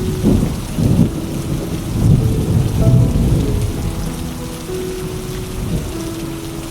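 Steady rain with a low rolling rumble of thunder that swells over the first half and fades away. Soft background music of slow, held notes plays underneath.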